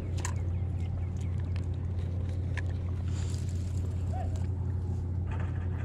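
Steady low motor hum, with scattered light clicks and a short rush of hiss about three seconds in.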